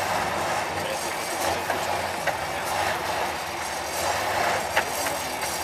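Tatra 815 trial truck's diesel engine running steadily as the truck crawls over steep, rough ground, with a couple of short sharp knocks.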